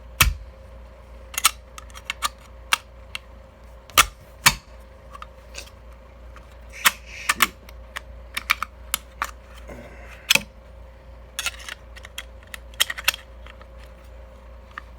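Metal parts of a Micro Draco AK-pattern pistol clicking and knocking irregularly as it is handled and put back together, with a few sharper knocks among lighter clicks.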